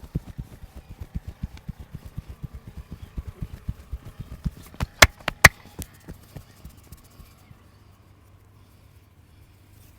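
Hands rapidly patting and tapping on the body in a massage, about five or six soft thuds a second, with two sharp cracks about halfway through; the tapping dies away after about six seconds.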